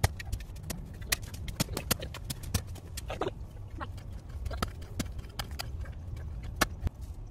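Shovel blade being driven and scraped into hard ground while a post hole is dug: irregular sharp knocks, several a second, with scraping between them.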